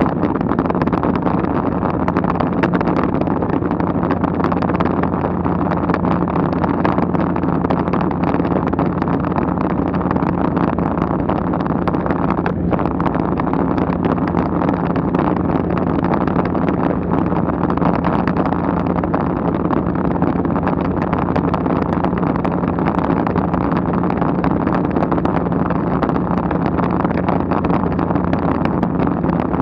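Steady engine drone of a light aircraft heard from inside its cabin, with rushing wind noise; an even hum that holds the same pitch throughout.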